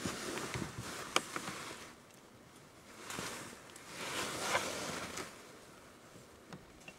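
Soft rustling in a few short stretches, with a single sharp click about a second in.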